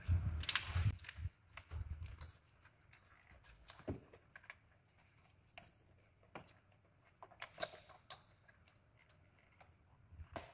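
Irregular small plastic clicks and rattles of ignition coil connectors being worked loose and unplugged from the coils, with a few soft knocks in the first two seconds.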